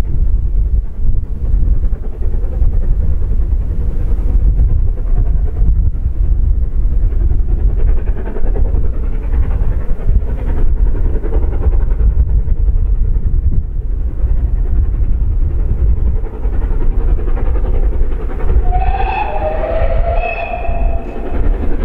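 Steam train running past with a heavy, continuous low rumble. Near the end a locomotive steam whistle sounds in two short, slightly falling notes.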